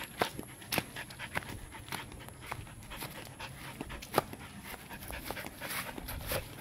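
Dog panting in quick, breathy puffs while trotting on a leash, with sharp footstep clicks and crunches on dry ground.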